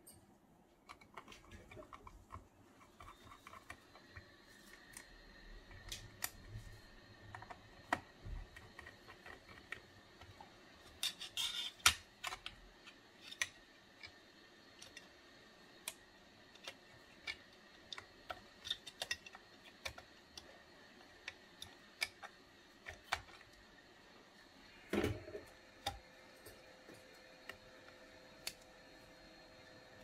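Scattered small clicks and taps of a screwdriver and small metal parts as a 2012 Mac Mini is reassembled. A quick cluster comes about 11 to 12 seconds in and a louder knock about 25 seconds in.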